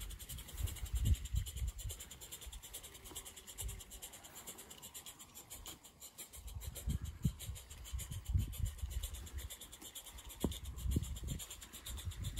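Small live steam garden-railway locomotive with an oscillating cylinder, running along the track with a faint hiss of steam and a rapid, light chuffing exhaust. Irregular low rumbles sound underneath.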